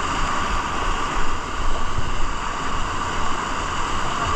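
Small waterfall cascading over boulders in a rocky stream, a steady loud rush of whitewater.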